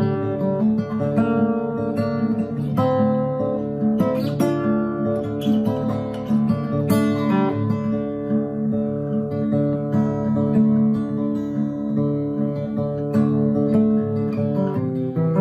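Acoustic guitar music, a steady run of notes throughout.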